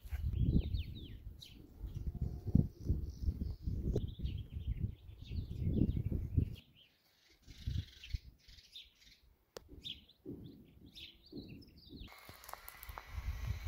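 Outdoor ambience of small birds chirping over irregular low rumbling gusts of wind on the microphone. The rumble drops out about two-thirds of the way through, and near the end a steady hiss takes over.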